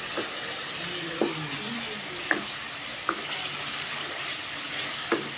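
Minced meat (keema) sizzling in hot oil in an aluminium karahi, stirred with a wooden spoon that knocks against the pan five times.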